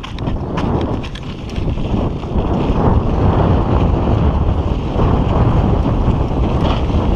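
Wind buffeting a chest-mounted camera's microphone as a mountain bike rolls down a loose dirt trail, with tyre noise and scattered clicks and rattles from the bike. It grows louder about two seconds in as the bike picks up speed.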